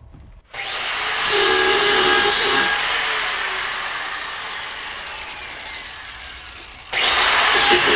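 A handheld electric power tool switched on about half a second in, its motor whine rising as it spins up. It then falls and fades over several seconds as the motor coasts down, and it is switched on again near the end.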